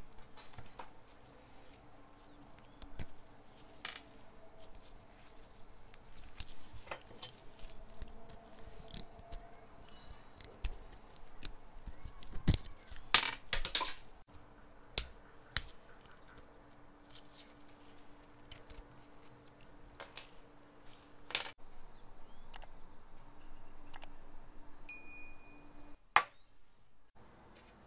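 Small metal parts clicking and clinking as they are handled and set down, in scattered sharp taps with quiet between and a few louder knocks.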